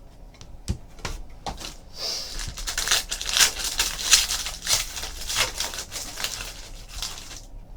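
A Panini Prizm football card pack wrapper being torn open and crinkled: a few sharp clicks, then a dense run of tearing and crinkling from about two seconds in that stops shortly before the end.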